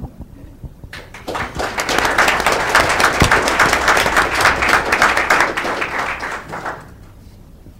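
Audience applauding: the clapping starts about a second in, swells, and dies away a little before the end.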